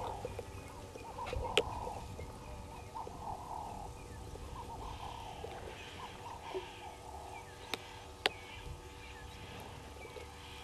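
Birds calling and chattering repeatedly in the bush, with three sharp clicks: one about a second and a half in and two more close together near the end.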